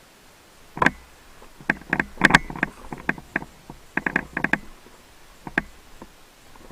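Airsoft guns firing: irregular sharp snaps, some single shots and some quick bursts of several shots, starting about a second in.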